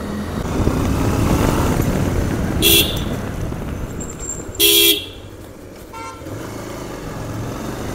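Riding noise from a Bajaj Pulsar 150 motorcycle moving through town streets, with a vehicle horn sounding twice: a short beep about three seconds in and a longer blast a couple of seconds later. The riding noise drops a little after the second horn.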